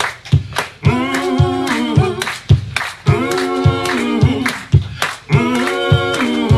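Live vocal harmonies, more than one voice singing short phrases together, over a steady beat of sharp percussive slaps about three a second. Little other accompaniment is heard.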